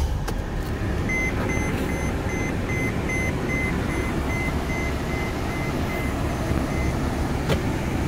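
Mercedes-Benz Sprinter van's diesel engine idling steadily just after start-up. A dashboard warning chime beeps about two and a half times a second from about a second in until near the end.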